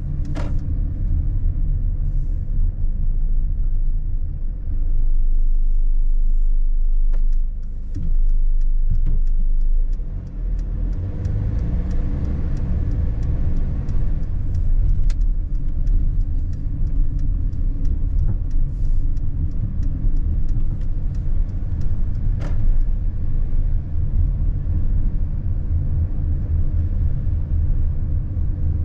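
Mercedes-Benz Sprinter van driving in town, heard inside the cab: a steady low rumble of engine and tyre noise, with scattered faint clicks.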